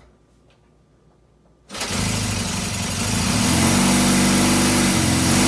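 A freshly rebuilt 1971 Honda SL175's small parallel-twin engine fires suddenly about two seconds in and keeps running, getting louder about a second later.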